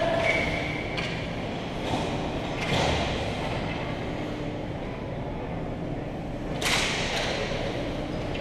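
Ice hockey play in a rink: a steady hollow background of the arena with several sudden knocks and scrapes from sticks, puck and skates on the ice and boards, the loudest and sharpest about seven seconds in.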